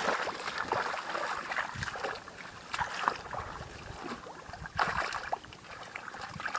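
Hands groping through shallow muddy water for fish, sloshing and splashing irregularly, with a few sharper splashes.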